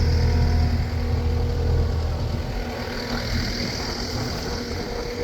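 Takeuchi TL12 tracked skid steer's diesel engine running steadily at idle.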